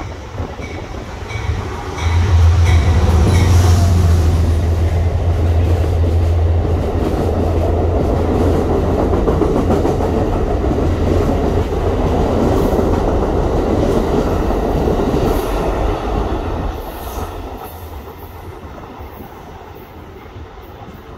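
Amtrak passenger train passing a station platform. The locomotive's loud low drone arrives about two seconds in, followed by a long steady rumble of the passenger cars rolling past on the rails, which dies away near the end as the train recedes.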